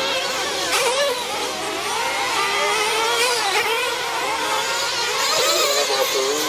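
Several RC truggies racing, their small engines whining in overlapping high pitches that rise and fall as they accelerate and back off.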